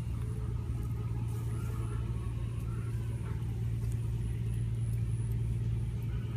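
A steady low motor drone with an even pitch.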